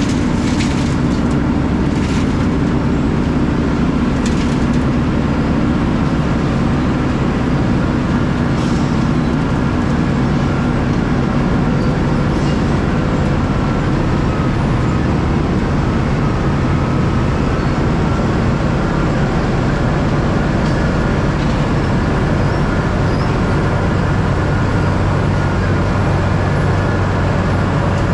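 Dump truck under way, its diesel engine running at a steady drone with road noise. A few short clicks come in the first several seconds.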